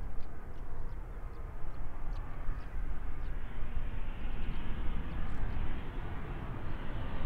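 SEPECAT Jaguar's twin Rolls-Royce Turbomeca Adour turbofans on final approach with gear down: a steady low jet rumble, with a hiss building from about halfway through as the jet comes nearer.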